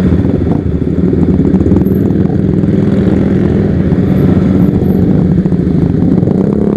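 KTM RC sport bike's single-cylinder engine running steadily while riding slowly in a line of motorcycles.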